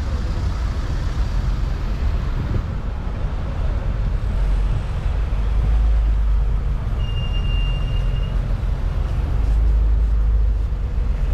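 Street traffic: a steady low rumble of passing cars and buses, with a short high steady tone lasting about a second and a half about seven seconds in.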